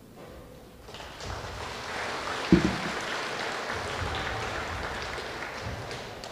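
Audience clapping, building about a second in and fading near the end, with one loud low thump partway through.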